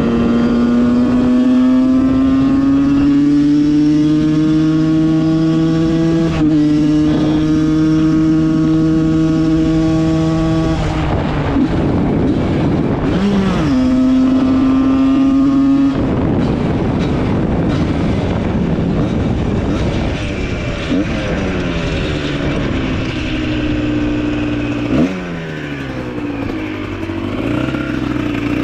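A 760 hp Porsche's engine pulling under throttle, its note climbing steadily through each gear with shifts about 6 and 11 seconds in. Near the end the note drops sharply twice as the revs fall.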